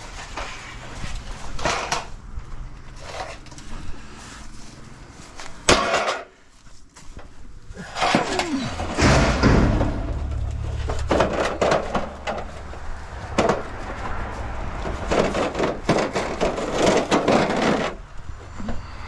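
Scrap metal being handled and loaded: repeated knocks and clatter of pieces striking one another, with a sharp bang about six seconds in. From about halfway through, a steady low rumble runs underneath.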